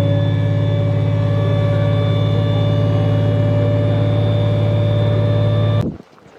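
Heavy armoured vehicle engine running steadily, a loud low drone with a steady whine above it, cutting off suddenly near the end.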